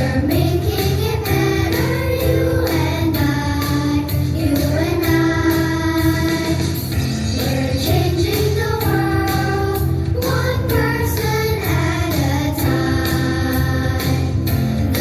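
A song with a sung melody over a steady beat and bass line.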